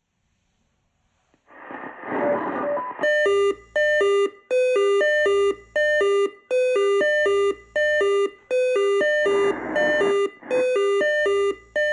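Swissphone Quattro analog fire-brigade pager going off. About a second and a half in, a short burst of hiss carries a quick sequence of tones. After that, the pager's alert beeps fast between two pitches in repeated short bursts. A second hissy tone sequence cuts in near the end as another alarm loop triggers it.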